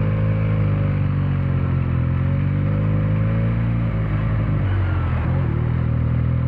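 Benelli 302's parallel-twin engine and exhaust running under way at steady revs, the pitch easing down about two-thirds of the way through. A sound the rider calls something very special.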